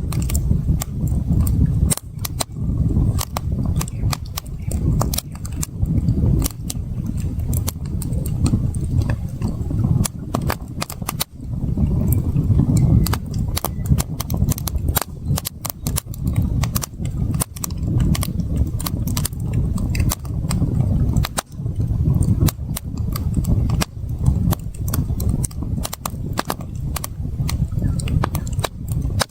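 Wood campfire crackling, with many sharp irregular pops and snaps over a low, uneven rumble.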